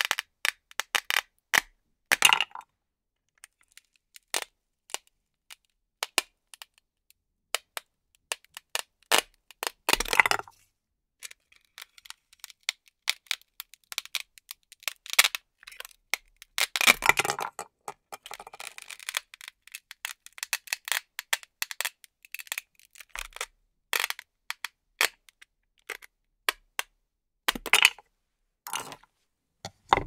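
Hook-and-loop (Velcro) fastener crackling and ripping as Velcro-joined toy fruits are cut in half with a knife and pulled off a Velcro disc. There are about five loud crackling rips, the one about 17 seconds in the longest, with scattered sharp clicks and taps in between.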